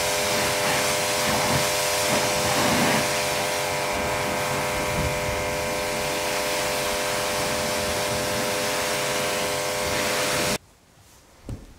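Pressure washer running with a steady motor hum under the hiss of its water jet spraying a car; it cuts off abruptly about ten seconds in, followed by a single knock near the end.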